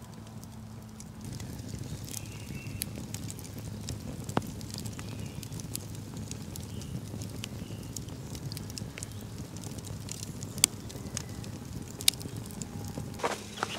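Wood campfire burning, crackling with scattered sharp pops, a few louder ones in the second half.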